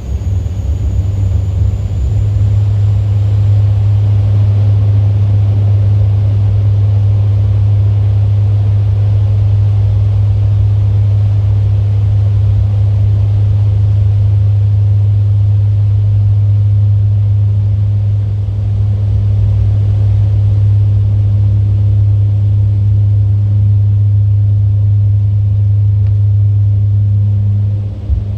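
Steady low drone of an airliner's jet engines heard inside the cabin, with a faint high whine rising in the first few seconds.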